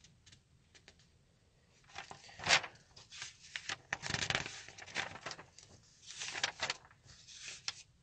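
Rustling and scraping handling noises with scattered clicks, coming in short bursts, the loudest about two and a half seconds in.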